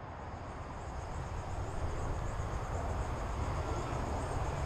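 Steady outdoor rumble and hiss picked up by a mask-mounted action camera as the wearer walks along a wooded trail, growing slowly louder. Faint high insect chirping repeats evenly above it.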